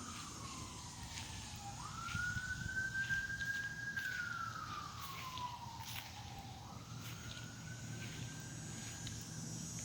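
Faint emergency-vehicle siren wailing: a single tone that holds high, slides slowly down over a couple of seconds, then jumps back up, repeating about every five seconds, over a low steady rumble.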